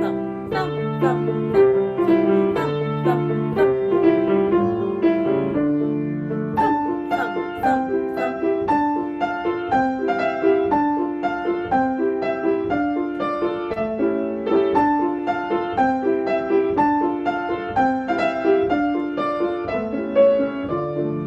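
Piano playing a tune at a steady walking pace, with a bass line under repeated chords and a melody.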